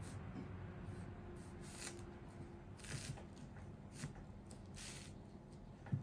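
A kitchen knife cutting into the side of a large whole watermelon, the rind and flesh giving a few faint crisp crackles, about one a second, with a low thump just before the end.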